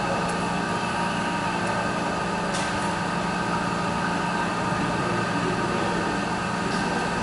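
A steady mechanical hum holding several constant tones over a background hiss, with a faint click about two and a half seconds in.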